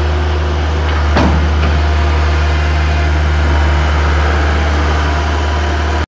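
New Holland LS190 skid steer on the move, its diesel engine running steadily with a strong low drone. A single sharp knock from the machine about a second in.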